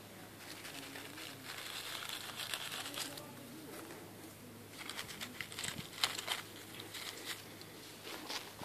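Dry fallen leaves and forest litter rustling and crinkling under a hand as it brushes them aside around a small porcino; soft at first, then sharper crackles from about halfway.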